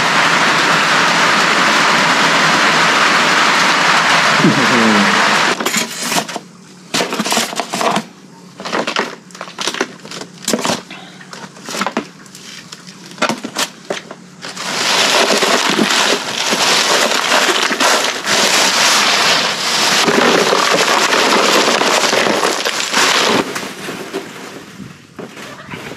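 Running water hissing steadily while cooked mud crabs are cleaned. Then comes a run of sharp cracks and crunches as crab shell is broken apart. The running water starts again about halfway through and fades near the end.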